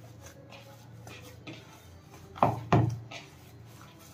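Kitchen handling sounds: two quick dull knocks, a third of a second apart, about two and a half seconds in, over a faint steady hum.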